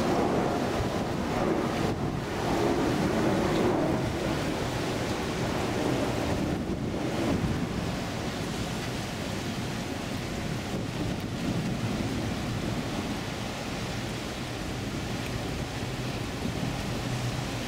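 Wind buffeting the microphone over the rush of river water, louder in the first few seconds. Underneath runs a low, steady hum from a ship's engine.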